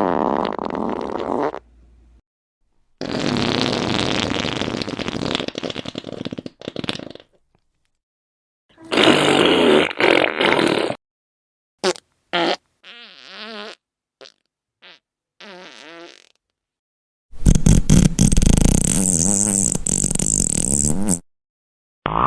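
A string of about ten fart sound effects with silent gaps between them. Some are long and drawn out, lasting up to four seconds, and others are short quick blips around the middle. The last long one is among the loudest.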